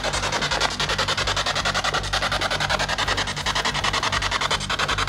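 SB7 spirit box sweeping through radio stations, giving a continuous hiss of static chopped into rapid, even bursts of about ten a second.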